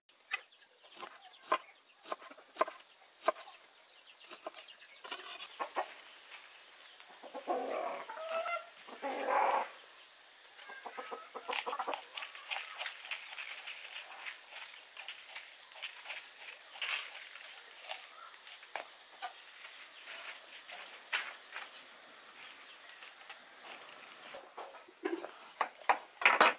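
Chickens clucking, loudest as two calls about eight and nine seconds in, over many small clicks and crackles of food being handled on aluminium foil. Near the end come a few sharper knocks of a knife cutting a lime on a wooden board.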